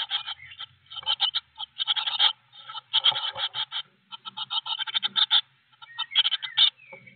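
Blue tit chick begging with rapid, raspy trains of calls, in bursts that come about once a second, while an adult visits to feed it.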